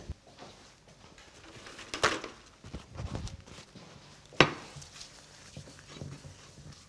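Kitchen utensils being handled on a worktop: a few scattered knocks and clatters, the sharpest about four seconds in.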